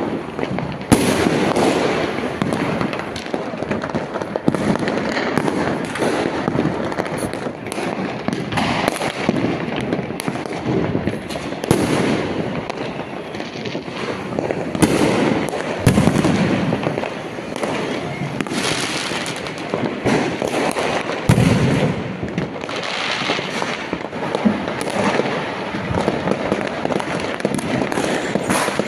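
Diwali firecrackers and fireworks going off in a dense, unbroken string of bangs and crackles, some reports louder than the rest.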